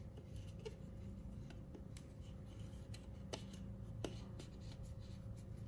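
Faint scraping and light clicks of a knife blade and then a thin metal pin working into the seam between an LED bulb's plastic diffuser dome and its plastic housing, with two sharper clicks past the middle. A steady low hum sits underneath.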